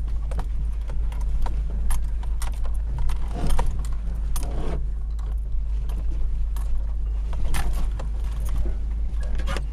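Hummer H3 crawling over a rough off-road trail, heard from inside the cabin: a steady low engine and road rumble with frequent sharp clicks and rattles from the body and loose contents jostling.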